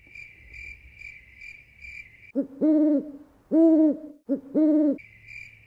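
Edited-in sound effect of crickets chirping in a steady high pulse about twice a second, interrupted about two seconds in by an owl hooting three or four times, after which the crickets come back near the end. This is the stock crickets-and-owl gag for an awkward silence.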